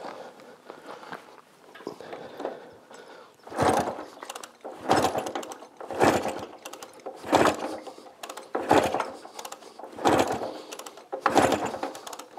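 1937 Scott two-stroke twin kick-started over and over, about seven strokes one every second and a half or so from about three seconds in, each a clattering turn-over of the kickstart and engine that does not catch. The engine fails to fire despite choke and a tickled carburettor.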